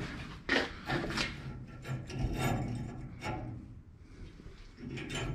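Several short scrapes and rubs of metal being handled: the dump cart's spring-loaded steel dump latch worked by hand, which has come apart where a clip fell out.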